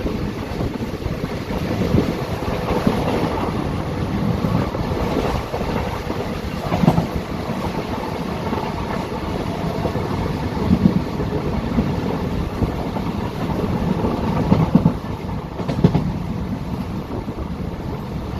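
Indian Railways passenger train running, heard aboard: a steady rumble of wheels on track with a clack every few seconds.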